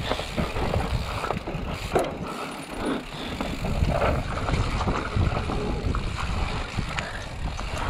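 Mountain bike rolling over a rough trail: steady rattling and clicking from the chain and frame over tyre noise, with frequent small knocks.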